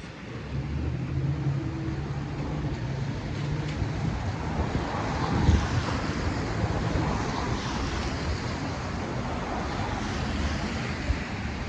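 Traffic noise on a wet road: a steady hiss of tyres with a vehicle's engine running low underneath, and wind on the microphone.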